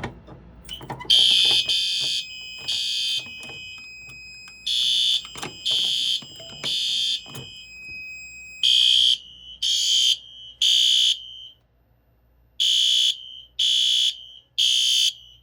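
Fire alarm horns sounding in the temporal-three evacuation pattern: three short blasts, a pause, then three more, repeating. This is a test alarm on a home fire alarm system. A few clicks come just before the first blasts, and a thin steady high tone runs under the first few groups.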